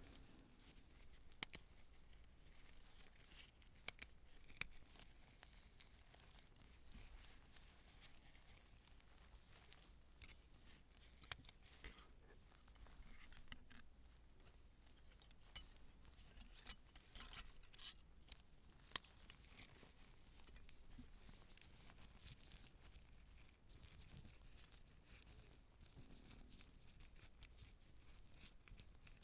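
Faint, scattered clicks and snips of metal surgical instruments being handled, most of them bunched in the middle stretch, over a low hiss.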